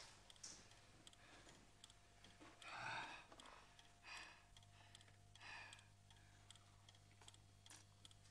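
Near silence: a man eating at a table, with faint clicks from the food and plate and three soft breathy sounds.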